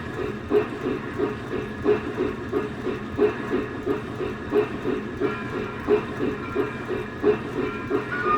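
Lionel RailSounds 4 sound system of a PRR T1 Duplex model steam locomotive playing steady steam exhaust chuffing in an even, repeating rhythm, as of the engine running under way.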